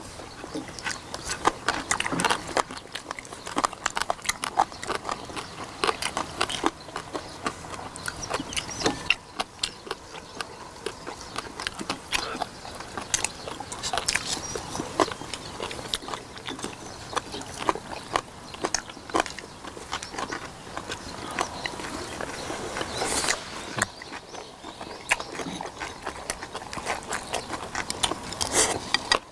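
Close-miked eating sounds: several people chewing braised pigs' feet (jokbal), a dense, irregular run of wet smacks and short clicks.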